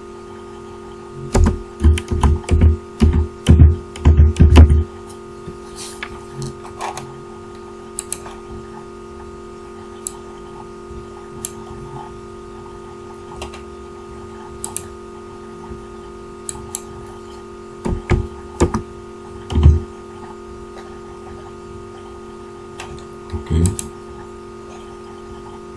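Computer keyboard keystrokes and mouse clicks, in a quick flurry in the first few seconds and another cluster about eighteen seconds in, with scattered single clicks between. A steady electrical hum runs underneath.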